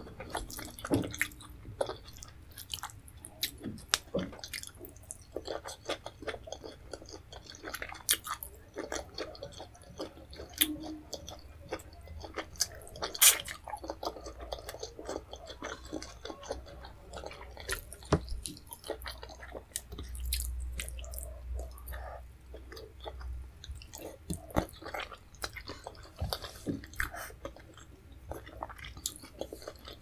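Close-miked eating sounds: chewing fufu and leafy vegetable soup, with many short wet mouth clicks and smacks. The sharpest click comes about thirteen seconds in.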